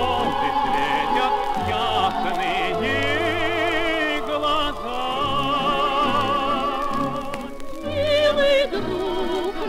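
Old Soviet 78 rpm shellac record playing a song for voices, choir and orchestra: singers holding notes with a wide vibrato over sustained orchestral accompaniment. The sound is dull, with no top end, as on an early recording.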